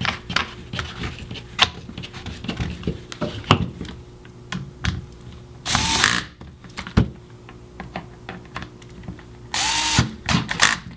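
Cordless electric screwdriver driving screws into a paintball pistol's shell in two short runs of motor whine, about six seconds in and again near the end. Light clicks and knocks of handling the parts come in between.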